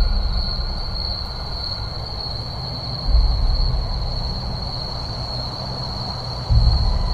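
Deep rumbling drone that swells about every three seconds, over a steady high-pitched whine.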